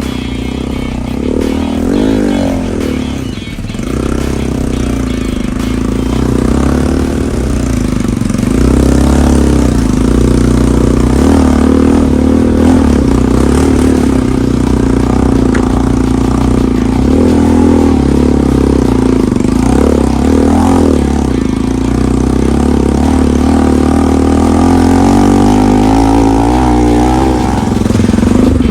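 Motorcycle engine running while ridden, its revs rising and falling again and again.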